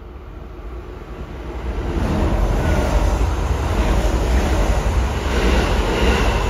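Kintetsu Osaka Line train passing close by a station platform: a rumbling rush of wheels on rail that builds up over the first two seconds and then stays loud.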